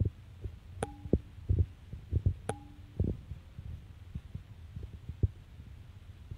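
Irregular low thumps and rumble on the phone's microphone. Twice, a short sharp click followed by a brief two-note tone, the second note lower and longer.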